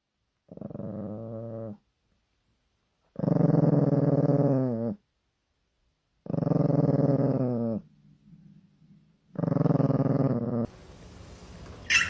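Dog vocalizing four times in long, low, drawn-out sounds, each lasting over a second with a short pause between.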